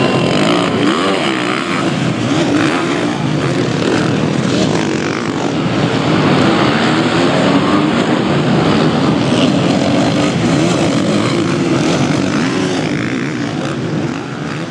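Supermoto motorcycle engines revving up and down through the gears, growing fainter near the end.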